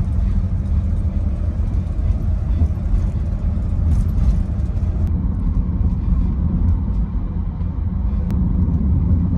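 Car driving along, a loud steady low rumble of road and wind noise.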